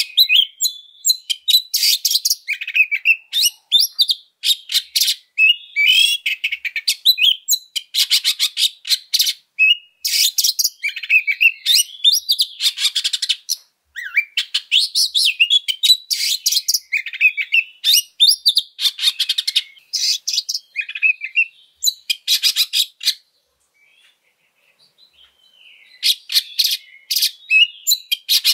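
Oriental magpie-robin singing a loud, fast fighting song: rapid harsh rasping notes mixed with whistled phrases. It breaks off briefly about three-quarters of the way through, then starts again.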